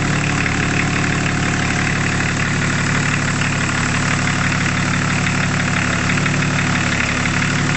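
BMW turbocharged six-cylinder marine diesel, stage 2 tuned to 175 hp, running steadily at a constant speed with an even low rumble.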